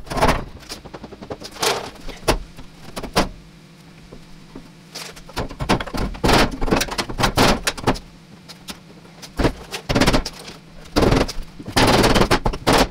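Steel replacement floor pan being shifted and pressed into place in a car body, clanking and rattling against the surrounding metal in a series of irregular knocks, over a low steady hum.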